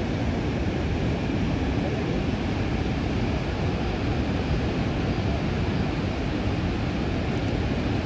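Steady, loud rush of falling water from a large waterfall, with a strong low rumble. It cuts off suddenly near the end.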